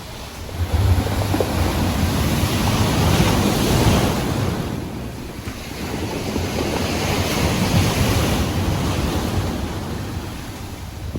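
Ocean surf at high tide: waves breaking and washing up the beach in two long swells, the first building about a second in and the second around seven seconds, with a low wind rumble on the microphone.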